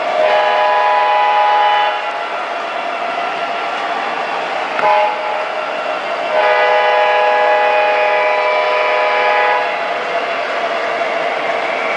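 Sound system of an MTH Premier O scale diesel locomotive playing a multi-chime diesel horn: a long blast, a short toot about five seconds in, then another long blast, the end of the grade-crossing signal. Under it runs the steady rumble of the locomotive's diesel sound and its wheels on the three-rail track.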